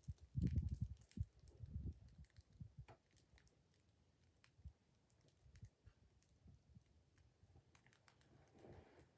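Bonfire of scrap wood crackling faintly, with scattered sharp pops and ticks throughout. A few low muffled thumps on the microphone in the first two seconds are the loudest sounds.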